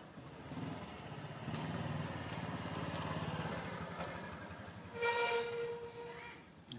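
A motor vehicle rumbling past, growing louder and then fading, followed about five seconds in by one short, flat horn blast.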